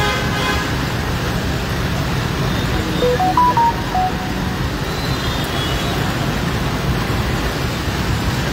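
Steady road traffic on a wet street, with vehicles running and passing close by. About three seconds in, a brief run of short notes stepping up and down in pitch sounds over the traffic.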